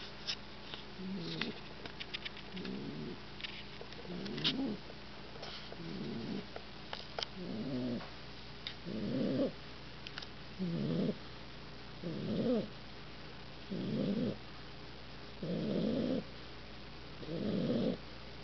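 An 8-week-old Olde English Bulldogge puppy snoring in his sleep, a low rasping snore about every one and a half seconds that grows fuller as it goes on. A few faint clicks come in the first half.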